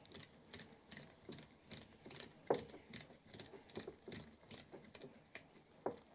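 Clicker-type damping adjusters on a motorcycle race rear shock being wound fully out by hand, giving a run of faint clicks, two or three a second, one per detent.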